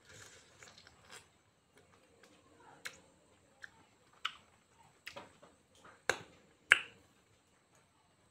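Close-up eating of soft fruit: quiet chewing, then about half a dozen sharp, wet mouth clicks and smacks, the loudest near the end.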